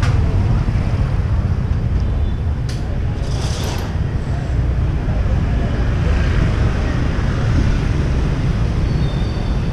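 Motor scooters riding past, their small engines running over a steady low rumble, with faint voices around; a short hiss sounds about three and a half seconds in.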